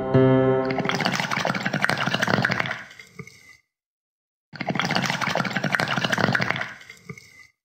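A music passage fades out in the first second. Then comes a rushing-water sound, like a sampled flush or running water, in two matching bursts of about three seconds each, with a second of silence between them.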